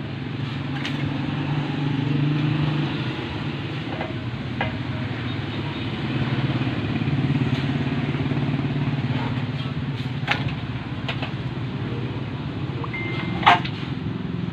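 Low, steady rumble of a motor engine that swells and fades twice, with a few light clicks and knocks of PVC pipe and fittings being handled, and a sharper knock near the end.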